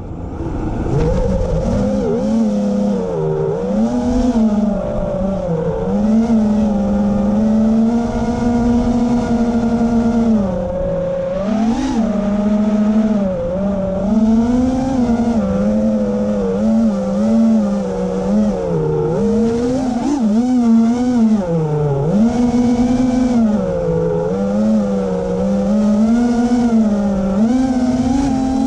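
Small electric propeller motors of a radio-controlled aircraft running continuously with a steady buzzing whine. The pitch wavers up and down every second or two as the throttle changes.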